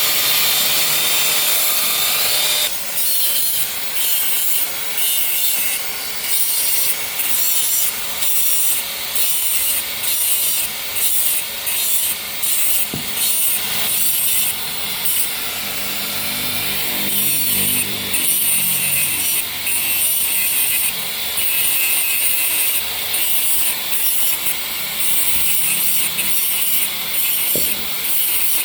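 A hand tool scraping back and forth in steady, regular strokes, about one stroke a second, on a car's clutch parts.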